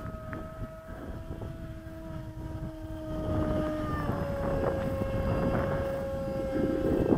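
Electric motor and propeller of a radio-controlled VX-30 canard plane in flight, a steady whine that drops slightly in pitch about four seconds in. Wind rumbles on the microphone underneath.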